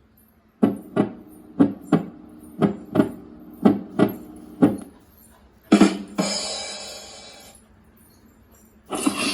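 Drum-kit sound effect: about nine sharp drum hits in pairs, then a double hit with a cymbal crash ringing out for about two seconds.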